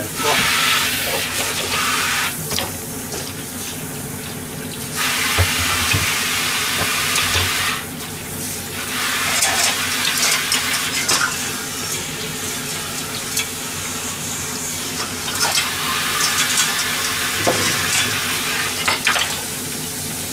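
Kitchen tap running into a stainless-steel sink in spells, turning on and off, as a pot and then a glass are rinsed. Dishes clink now and then.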